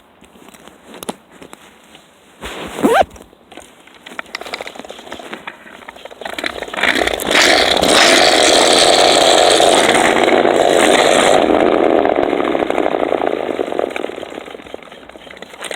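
A kick scooter rolling fast downhill on pavement, its wheels running with a loud rattle that builds about halfway through, holds for several seconds and then fades. It is heard muffled from a phone in a pocket, with a few knocks and rubs at first.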